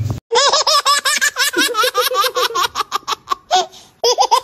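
A baby laughing: a quick string of high-pitched giggles that breaks off briefly and starts again near the end.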